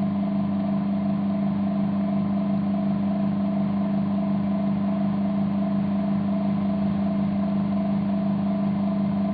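Diaphragm vacuum pump (KNF Neuberger N022AN18) running with a steady, even hum as it evacuates the sealer's chamber and the bag inside it.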